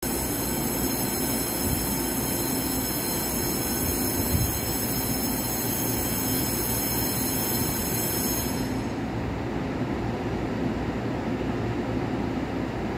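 Train noise in an underground railway station: a steady low rumble with a high-pitched whine that fades out about nine seconds in.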